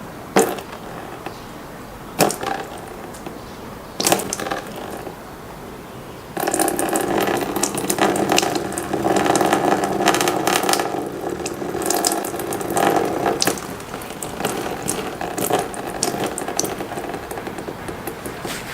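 Saline water from a gravity-fed nasal rinse jar running and splashing for about seven seconds as it flushes through the nose, then quieter splashes and dribbles. A few short handling knocks come first.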